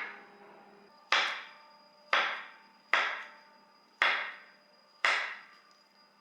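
A series of sharp knocks, roughly one a second, each fading quickly.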